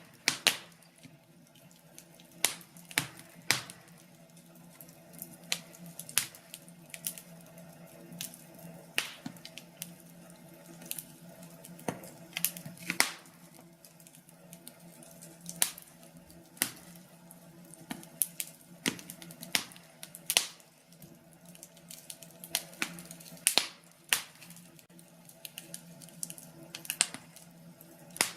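Wood fire burning in a fireplace, crackling with irregular sharp pops over a faint steady low hum.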